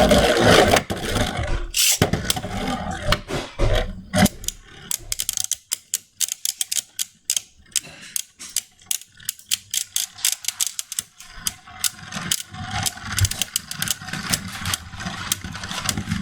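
Beyblade Burst spinning tops, Mystic Ultraus and Geist Fafnir, launched with a loud rip of the launchers at the start, then spinning and clashing in a plastic stadium with rapid sharp clicks of collisions. The clicks thin out and grow quieter in the middle, then pick up again toward the end.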